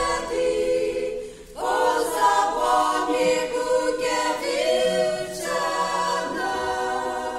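A small women's choir singing a gospel song a cappella, several voices together. There is a short pause for breath about one and a half seconds in, then the singing carries on.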